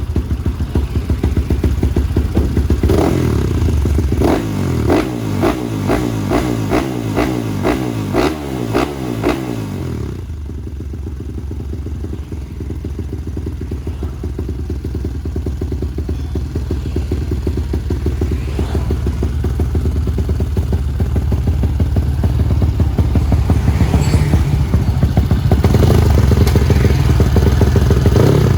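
Four-stroke trail motorcycle engine revved in a quick series of throttle blips for the first ten seconds, then running steadily, growing gradually louder toward the end.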